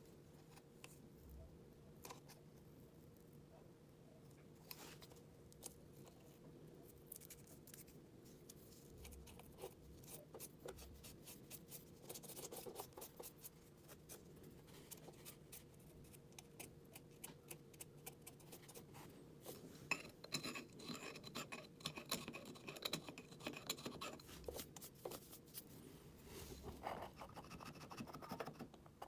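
Faint, close-up scraping and clicking of a hand tool working hardened body filler off wooden door trim. The strokes come sparsely at first and grow denser and louder about twenty seconds in.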